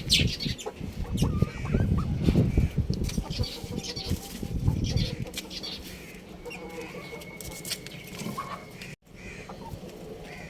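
Young rooster and chickens chirping and clucking over loud low thumping and rumbling, with one high note held for about two seconds past the middle.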